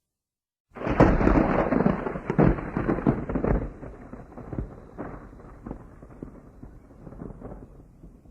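Thunderclap: a sudden, loud crash a little under a second in, with a rapid run of sharp crackles, then a rolling rumble that slowly dies away with a few scattered cracks.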